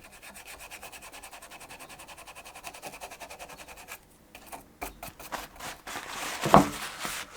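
Old hide glue being scraped off the wooden gluing surface of a violin: fast, even strokes, about six a second, for roughly four seconds. After a short pause and a few clicks, rougher scraping follows, with one brief louder pitched sound near the end.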